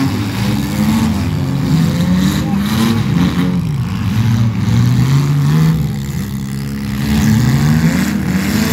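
Demolition derby cars' engines revving hard, several at once, their pitches rising and falling over one another.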